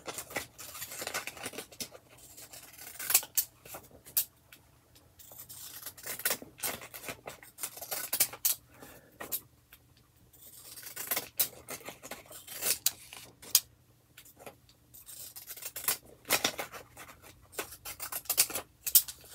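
Wavy-edge craft scissors snipping through paper card in a run of short, crisp cuts, irregularly spaced with brief pauses between.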